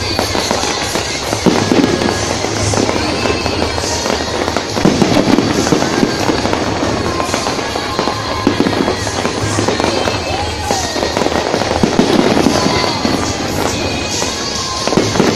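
Aerial fireworks bursting and crackling in a steady run of bangs, over continuous music.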